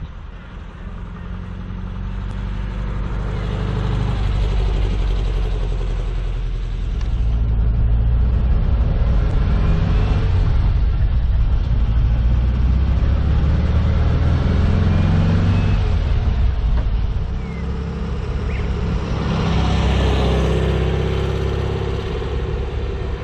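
1960cc Volkswagen air-cooled flat-four engine in a 1960 VW Type 2 Kombi, running as the van drives. Its pitch rises and falls with the throttle, getting louder over the first few seconds and easing off briefly about three quarters of the way through.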